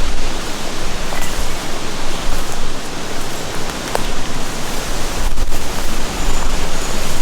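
Strong wind rushing and buffeting the microphone: a loud, steady noise with gusty low rumbling.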